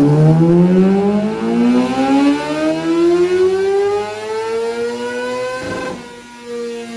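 Kawasaki ZX-6R race bike's inline-four engine revving out under full throttle on a dyno pull, its pitch climbing steadily for about six seconds. Near the end the throttle is shut and the note drops to a lower, steady tone.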